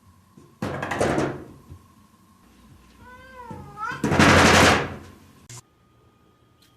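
A cat meows once with a wavering pitch about three seconds in, set between two loud noisy bursts, the first about half a second in and the second, louder one just after the meow; the sound cuts off suddenly near the end.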